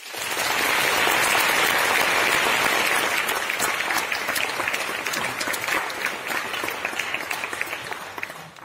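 Audience applause that starts suddenly, stays dense for a few seconds, then thins into scattered individual claps and dies away near the end.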